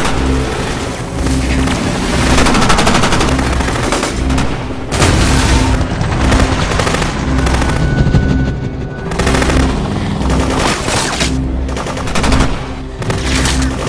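Rapid automatic rifle fire in long bursts with short breaks, over a pulsing low music track.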